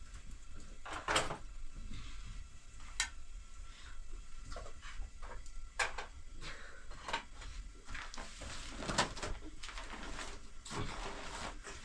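Irregular knocks, clicks and clatter of objects being handled, the sharpest about a second in.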